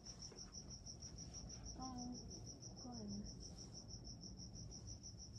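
Faint, steady high-pitched chirping, about five short evenly spaced pulses a second, over a low background hum, with faint voices murmuring briefly.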